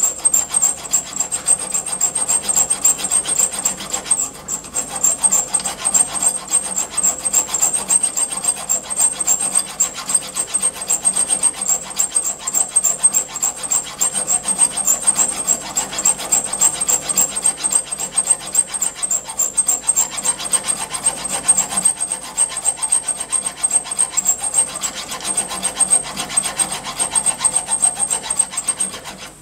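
Flat hand file rasping back and forth across a small steel drill rod in steady, continuous strokes, cutting a flat. The file's safe edge rides against the flange of the filing rest's rollers.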